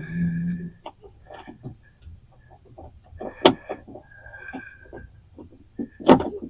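Clicks and knocks of metal parts and hand tools inside a car door, as a latch screw is fiddled into its hole and started by hand, with a couple of brief squeaks. The two sharpest knocks come about halfway through and near the end.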